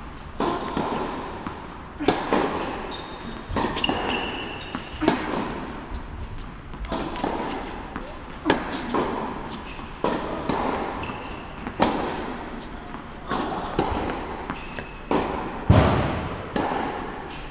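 Tennis balls struck by rackets and bouncing on an indoor hard court during a rally: a string of sharp hits about one to two seconds apart, each echoing in the large hall. The loudest hit comes near the end.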